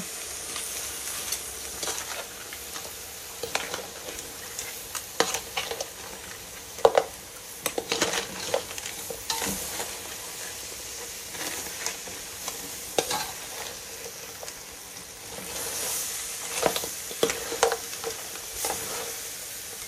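Crab pieces in curry paste sizzling in a large metal pan while a metal spoon stirs them, with frequent scrapes and knocks of spoon and crab shells against the pan; the sharpest knock comes about seven seconds in.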